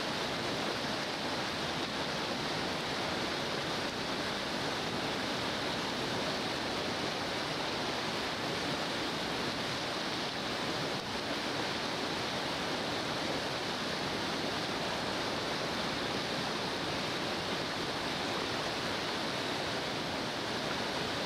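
Whitewater river rapids rushing steadily: a continuous, even wash of churning water that does not let up.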